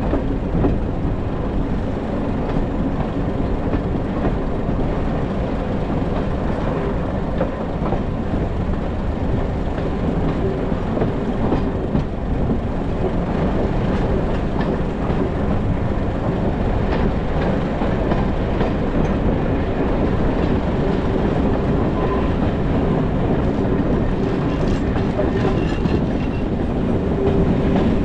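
Passenger coach of a diesel-hauled heritage train running along the line, heard at an open carriage window: a steady rumble of wheels on rail with the clickety-clack of rail joints.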